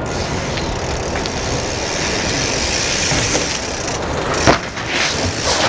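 Steady street and traffic noise, then a sharp knock about four and a half seconds in, followed by a few shorter scuffing hits: a BMX bike's tyres and frame striking concrete.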